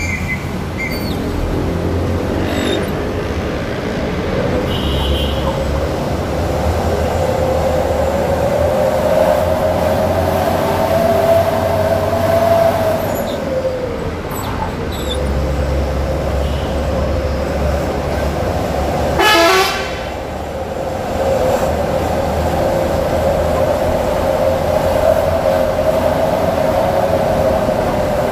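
Hino 500 truck's diesel engine running on the move, heard from inside the cab as a low rumble with a whine that rises and falls gently. A loud horn sounds once for about a second, about two-thirds of the way through.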